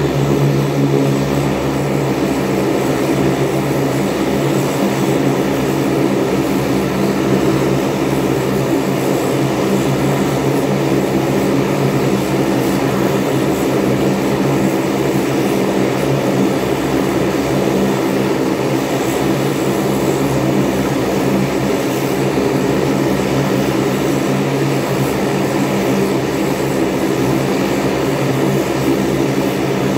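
Saab 340's General Electric CT7 turboprop engines running steadily during a ground engine test, a loud, even propeller drone that holds throughout.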